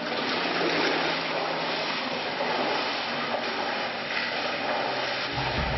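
Pool water splashing and churning as a swimmer does front crawl. Low music comes in near the end.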